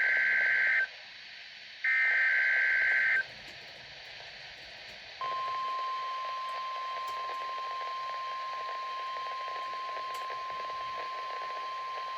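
NOAA Weather Radio weekly test. The tail of one SAME digital header burst and then a full second burst, each about a second long, are followed after a pause of about two seconds by a steady single-pitched 1050 Hz warning alarm tone, which starts about five seconds in.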